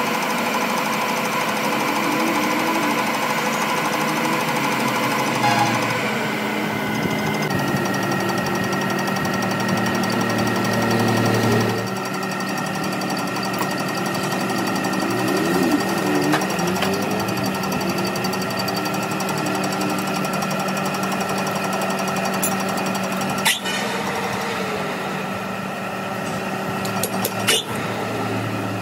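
Metal lathe running with a steady machine hum, its chuck spinning a steel sleeve. The tone shifts a couple of times in the first half, and a few sharp metallic clicks come near the end.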